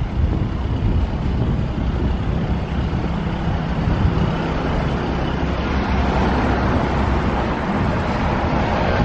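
Steady road traffic noise on a town street, brighter in the second half, over a low, flickering wind rumble on the microphone.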